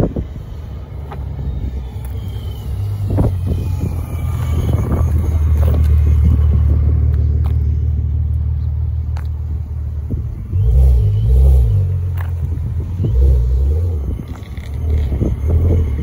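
Car engines rumbling at low revs. The sound swells to a steady peak about six seconds in, then pulses unevenly through the second half.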